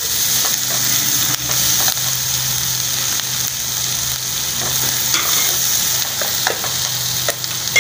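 Sliced onions and green capsicum sizzling in hot oil in a nonstick wok, stirred with a slotted spoon that clicks against the pan a few times.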